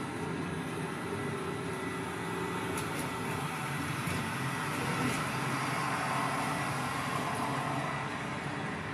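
Electroacoustic fixed-media music played over loudspeakers: a dense, continuous noisy texture with faint steady tones, swelling a little around the middle.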